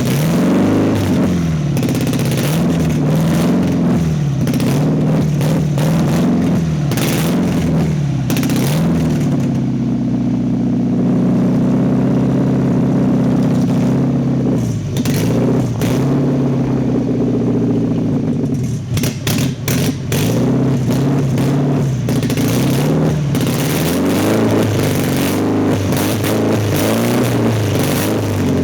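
1992 Nissan 240SX's 2.4-litre four-cylinder engine idling roughly, its speed rising and falling every second or two for much of the time, steadier for a stretch in the middle. The hunting idle is the running problem the owner is showing.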